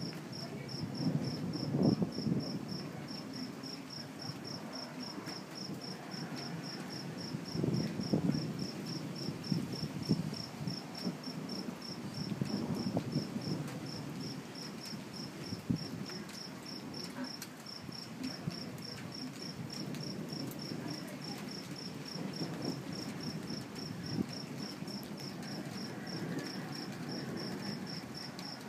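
A cricket chirping steadily at about three high chirps a second, over a low rumble of distant thunder that swells and fades several times.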